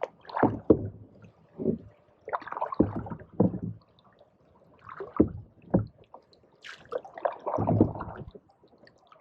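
Canoe paddles dipping and pulling through pond water, a series of irregular splashing, gurgling strokes with short quiet gaps between them.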